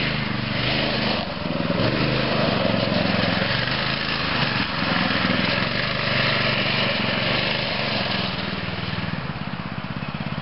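Hammerhead 80T go-kart's 6.5 hp four-stroke single-cylinder engine running steadily while the kart is driven, its note wavering a little. The sound cuts off suddenly at the end.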